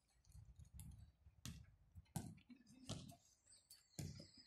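Faint sharp clicks, roughly one every second or less, over a low background hum.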